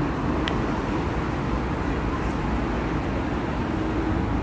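Steady road traffic noise: the low rumble and hiss of passing cars, with a brief high squeak about half a second in.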